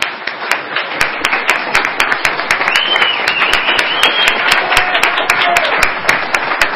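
Audience applauding, dense continuous clapping.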